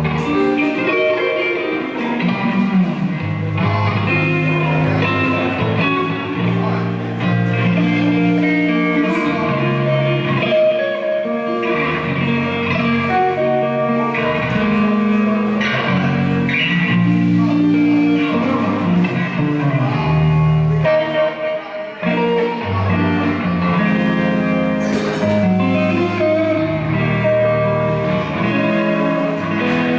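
Electric guitar played through an amplifier at a sound check, running through riffs with sustained notes and moving low lines.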